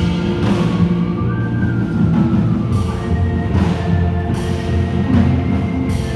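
Instrumental underscore from a stage musical: held chords over a low rumble, with percussion crashes landing about once a second.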